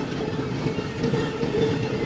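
A train rolling past: steady rumble of railcar wheels on the rails.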